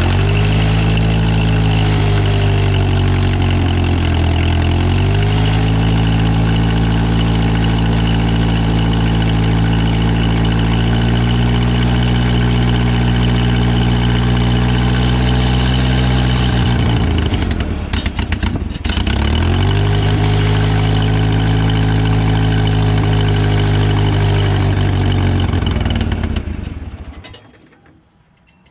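Morbark wood chipper's flat-four engine running on choke, sagging briefly about four seconds in, dying out around seventeen seconds in and being restarted moments later, then running down and stopping near the end. It keeps stalling from a fuel problem, which the owner takes for a dirty carburetor.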